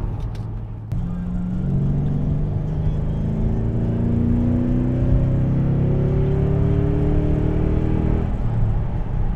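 Car engine accelerating steadily, its pitch rising slowly for several seconds, then cutting off abruptly near the end.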